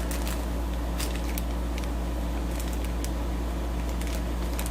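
A steady low hum, with a few faint clicks as small compressor-kit parts are handled.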